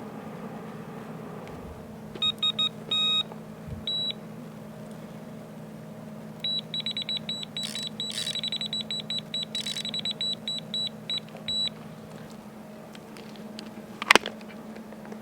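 Electronic carp bite alarm beeping: a few single beeps, then a long rapid string of beeps. A single sharp click comes near the end, over a steady low hum.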